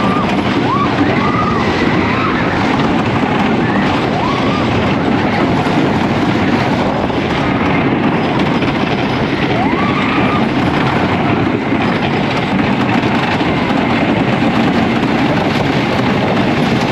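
GCI wooden dueling roller coaster train running along its wooden track, heard on board as a steady loud rumble. A few short rising-and-falling whoops from riders sound over it.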